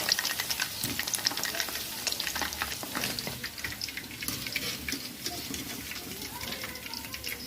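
Cornflour-coated chicken pieces sizzling and crackling in hot oil in a kadai, with a spoon stirring and lifting them as they are taken out. The chicken is done frying.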